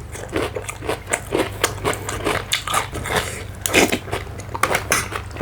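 A person chewing and biting food close to the microphone, with many irregular small clicks of mouth and teeth.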